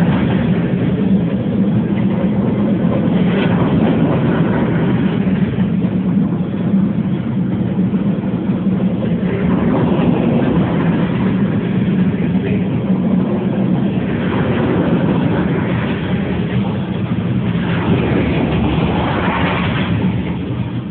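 Steady loud rumble of a manifest freight train's boxcars and tank cars rolling past close by, mixed with the road and wind noise of a car pacing alongside, swelling louder a few times.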